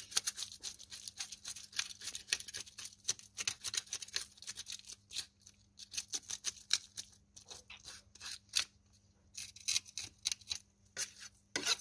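Knife blade scraping scales off a whole carp in rapid, irregular strokes, several a second.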